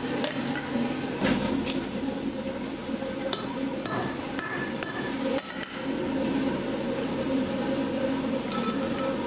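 Irregular hammer blows on iron over the anvil, bending the bar for the ring, several blows leaving a short metallic ring; a steady low hum runs underneath.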